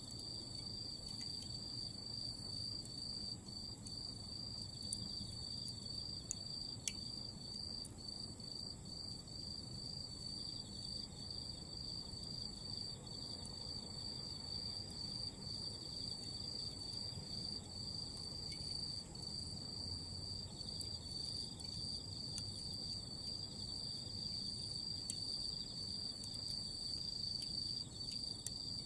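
Autumn insects chirping in a steady, high-pitched, finely pulsing trill. A few faint crackles from Iwate cut charcoal burning as glowing embers in a fire pit.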